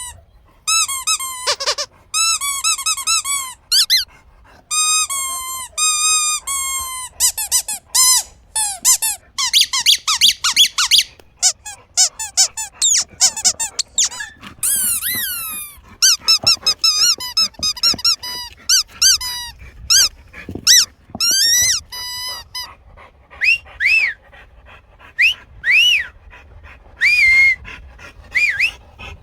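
High-pitched squeaking sounds of the kind used to get a dog's attention, in quick runs of short chirps. Near the end they give way to fewer, longer calls that rise and fall in pitch.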